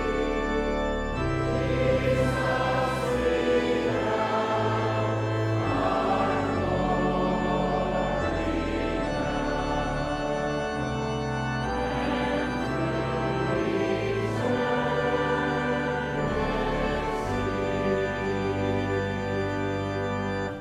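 A congregation singing a slow hymn in sustained chords with organ accompaniment, ending on a held final chord that stops near the end.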